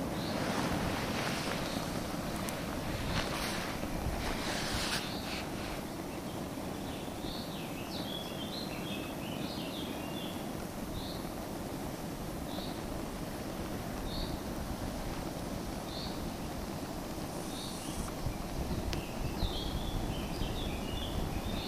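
Steady wind buffeting the microphone, with a bird's short high chirps repeating every second or two and two brief runs of quick twittering.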